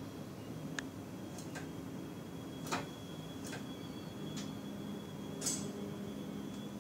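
Steady low hum of a train's driver's cab with a faint high steady tone, broken by about eight sharp, irregularly spaced clicks or ticks.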